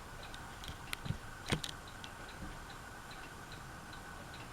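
Harbor Breeze Aristocrat ceiling fan running on low, a faint steady hum with a light, regular ticking about three times a second. A couple of slightly louder clicks come in the first two seconds.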